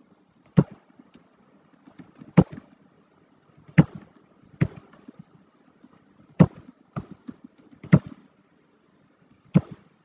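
Computer keyboard keystrokes and mouse clicks close to the microphone: sharp taps at irregular intervals, roughly one every second, with fainter ticks in between.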